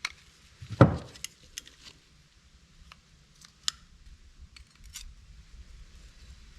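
Scattered small clicks and ticks of small metal carburetor parts being handled and worked by hand, with one louder knock a little under a second in.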